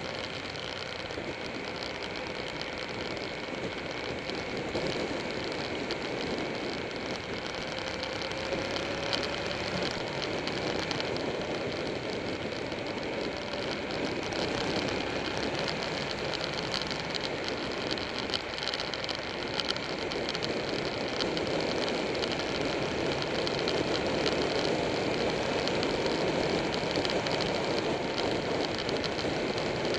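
Motorcycle running at road speed, its engine note mixed with steady wind rush on the microphone, getting a little louder in the second half.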